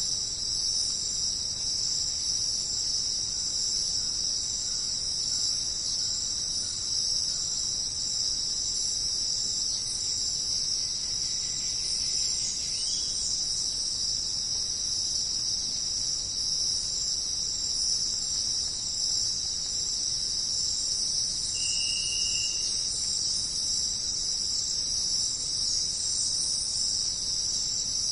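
Dense jungle insect chorus, a continuous high-pitched shrill drone at an even level. A short, clear high note cuts in briefly about three-quarters of the way through.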